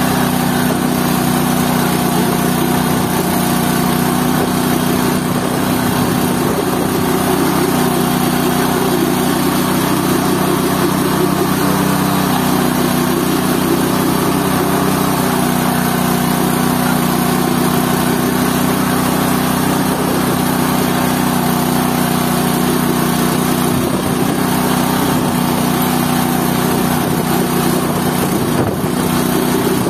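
GT-14 organic-waste pulping machine running steadily, its motor holding an even speed.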